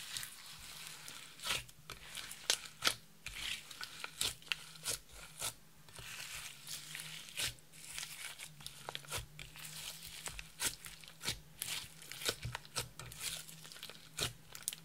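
Clear slime thick with glitter being kneaded, stretched and pressed by hand in a glass dish, giving irregular sticky pops and crackles.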